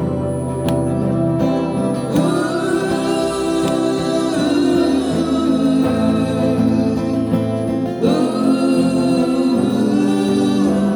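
A song performed with a singing voice over guitar accompaniment and steady bass notes; the melody rises and glides about two seconds in and again about eight seconds in.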